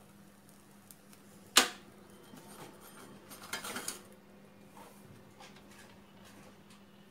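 A single sharp click about one and a half seconds in, then a cluster of clinks and scrapes as a metal spatula slides under a roasted bhakari and lifts it off the gas burner's grate, with a few faint taps after.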